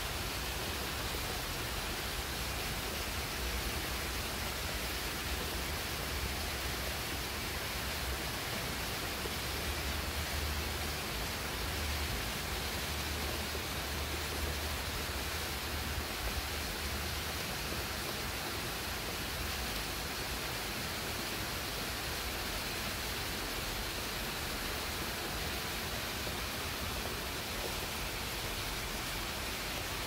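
Steady rain falling on leafy shrubs, an even hiss with no single drops standing out.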